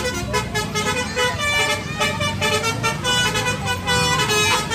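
Tour bus's basuri telolet musical horn playing a melody of quick, steady notes, over the low rumble of the bus engine.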